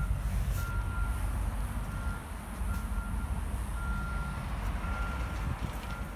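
A vehicle's reversing alarm beeping at one steady high pitch, the beeps of uneven length, over a continuous low rumble.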